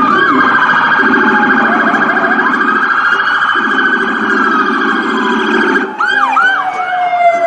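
Several police car electronic sirens sounding together. Fast yelping and warbling tones overlap a slow wail that sinks in pitch near the end, with a low pulsing tone beneath.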